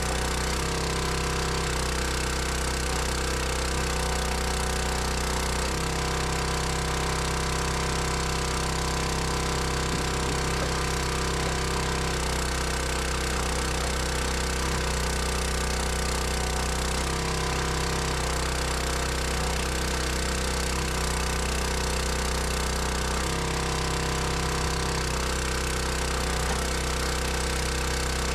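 An engine running at a steady, constant speed with no revving, its tone changing slightly in stretches of a few seconds.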